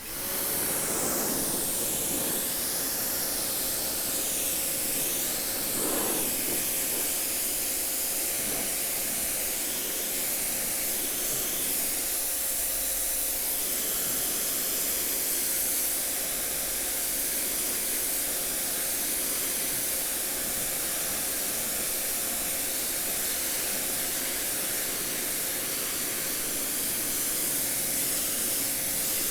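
Prymax 3000 PSI electric pressure washer spraying a jet of water onto a concrete foundation: a steady hiss of spray with a constant hum underneath.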